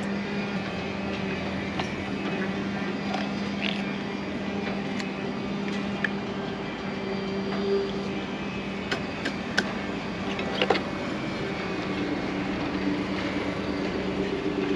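A steady mechanical hum with a held low tone, with a few sharp metallic clicks and clinks about nine to eleven seconds in as the parts of a saildrive propeller are handled.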